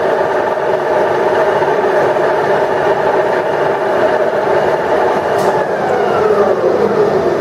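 Ryazan 1M63D screw-cutting lathe running under power: a steady gearbox whine and hum, with a faint tone gliding down in pitch about two-thirds of the way through.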